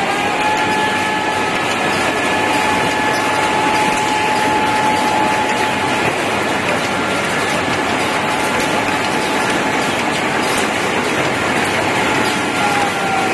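Receipt paper roll production machine running, with a steady mechanical rattle and a motor whine that holds one pitch, then begins to drop near the end as the machine slows down.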